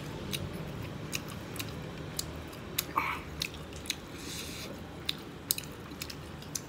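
A person chewing meat close to the microphone, open-mouthed, with irregular wet smacks and sharp little clicks.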